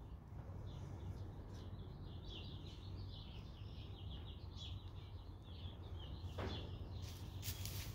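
Faint, quick chirping of small birds, many short calls in a row, over a steady low hum; a rustling starts near the end.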